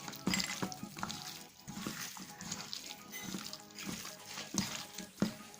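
Hands kneading raw chicken pieces coated in masala paste and lemon juice: irregular wet squelching and squishing strokes, with soft background music underneath.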